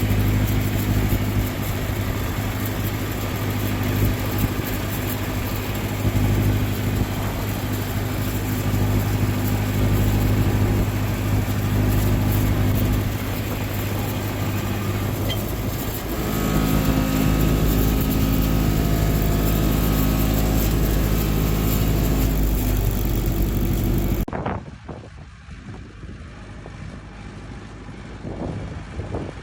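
John Deere tractor's engine running steadily and loudly, with a change in its tone about two-thirds of the way through. It cuts off abruptly near the end and gives way to quieter wind noise on the microphone.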